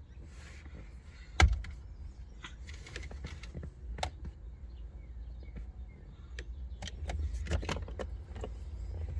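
Scattered clicks and light knocks inside a parked car's cabin, with one sharp, loud click about a second and a half in, over a low steady rumble.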